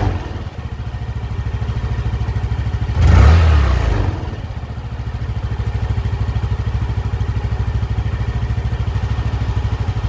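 Yamaha Mio MXi 125 scooter's fuel-injected single-cylinder engine idling steadily, with one short throttle blip about three seconds in that revs up and drops straight back to idle. The idle is held by a soft spring fitted as a throttle stopper, and it settles at the speed the owner was after.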